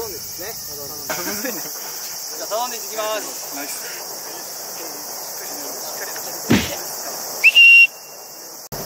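Night insects, crickets among them, chirring steadily on a high note, with faint voices. About six and a half seconds in comes a single thump, and just after it a loud whistle: a short chirp, then one steady note held for about half a second, which fades on briefly afterwards.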